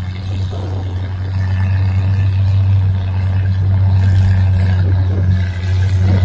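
Antique tractor engine running steadily under load, pulling a weight sled, growing slowly louder as it comes closer.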